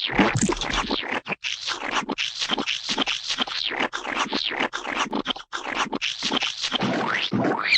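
Gooey, wet splat and squelch sound effects in quick succession, about two to three noisy bursts a second with short breaks between.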